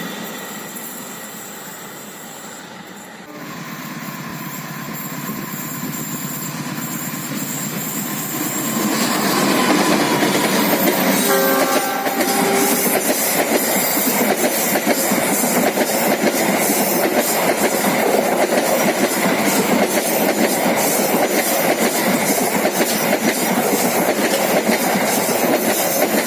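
A passenger train hauled by a diesel-electric locomotive approaches and passes, growing louder. A brief horn sounds about twelve seconds in, then a long run of carriages goes by with a steady rhythmic clatter of wheels over the rail joints.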